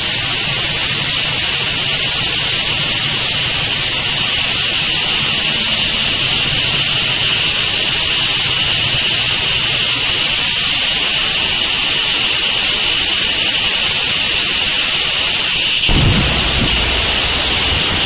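Gorenoise (harsh noise music): a loud, steady wall of static hiss, strongest in the highs, with a thin steady whine inside it and a faint low hum. Near the end a heavy low rumble breaks in.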